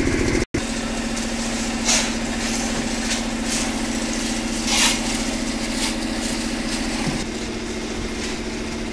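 Engine of a concrete mixer running steadily with a constant hum, with a few brief rasping noises over it. The sound cuts out for a moment about half a second in.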